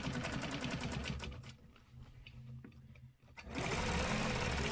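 Free-motion quilting machine stitching fast along a ruler, the needle running in rapid even strokes in two runs with a short pause between, the second run louder.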